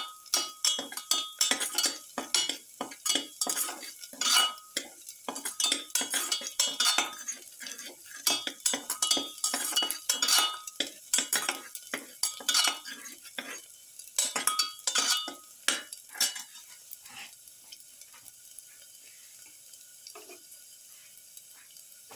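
A perforated metal spatula scraping and clinking against a stainless steel pan as garlic cloves are stirred in hot oil, with a faint sizzle underneath. The rapid scraping stops about three-quarters of the way through, leaving only the quiet sizzle.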